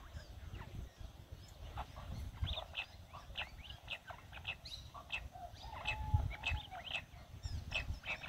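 Jungle bush quail calling: a string of short, sharp chirps at irregular intervals, with a brief whistled note about six seconds in, over a low rumble.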